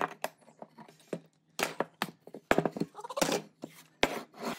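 Irregular wooden knocks and clatter as quick-release bar clamps are taken off and a freshly chiselled log is handled and lifted from a wooden workbench, with a short scraping rub about three seconds in.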